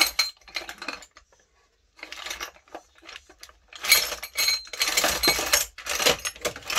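Loose metal hardware (bolts, screws, fittings) clinking and rattling against each other and the plastic tub as a hand rummages through it. It comes in bursts, with a pause of about a second near the start and the busiest rattling in the second half.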